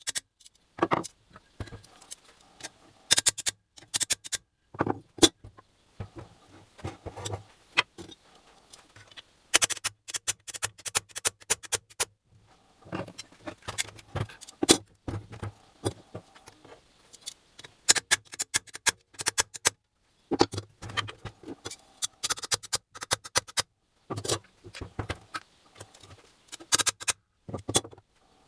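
Metal engine parts and tools clinking and clattering in irregular clusters of sharp clicks, as the NSU Pretis 175 engine is worked on by hand.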